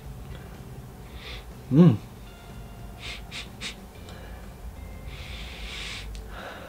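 A man sniffing essential oil rubbed on his wrist: short sniffs through the nose, a brief hummed vocal sound about two seconds in, three faint clicks a little after, and then a long inhale through the nose near the end.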